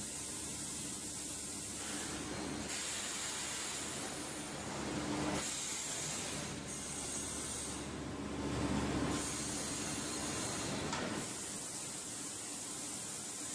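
Vacuum forming machine running: a steady hiss of air that shifts in tone several times, swelling louder about five seconds in and again around eight to nine seconds.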